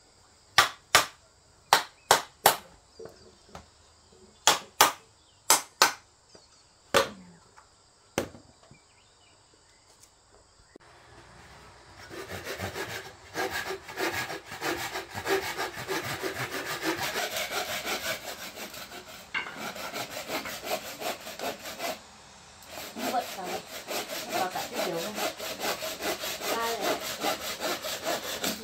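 A series of sharp knocks on wood, then steady, rasping sawing of wood that pauses briefly and starts again.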